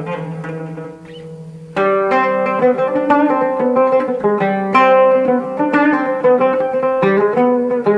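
Instrumental break of plucked string music with no singing: a soft passage, then about two seconds in a louder run of quickly plucked notes.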